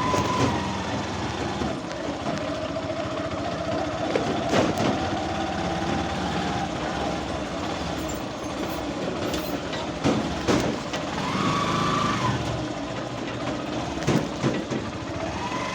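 A motor vehicle's engine running steadily with a whine that drops in pitch and rises again. Several sharp knocks are heard along the way.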